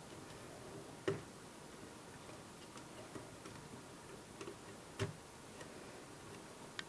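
Small screwdriver and tiny screws clicking and tapping against the laptop's screen hinge and bezel as the screws are put back in: faint scattered ticks, with a louder click about a second in, another about five seconds in and a sharp one near the end.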